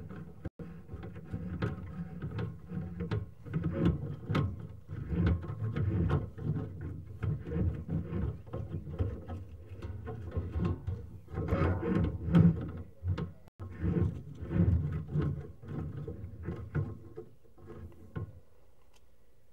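Sewer inspection camera's push cable being fed down a sewer line: irregular knocking, rattling and scraping of the cable and reel. It quiets down near the end as the camera stops advancing.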